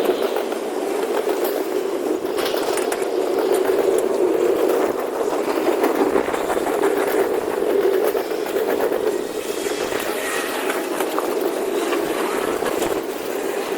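A train rolling past: a steady noise of wheels on the rails, with frequent sharp clicks.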